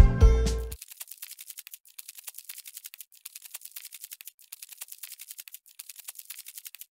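Background music that stops less than a second in, followed by a rapid, even run of faint clicks.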